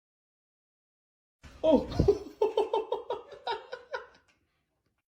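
A person laughing in a quick run of repeated 'ha-ha' pulses for about two and a half seconds, starting about a second and a half in after silence.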